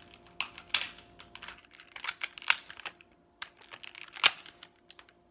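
Clear plastic toy packaging clicking and crinkling in the hands as a plastic twist tie is untwisted to free an action figure. It makes a run of irregular sharp clicks, the loudest about a second, two and a half and four seconds in.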